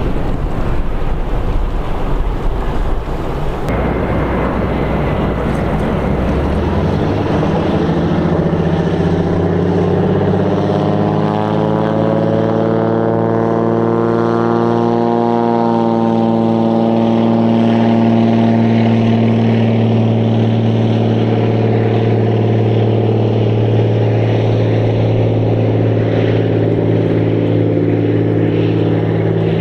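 A de Havilland Canada DHC-2 Beaver floatplane's radial engine and propeller drone steadily as the plane runs across the water at speed. The first several seconds are a rough, noisy rumble. After that the engine note comes through clearly, rising in pitch towards the middle and then settling lower.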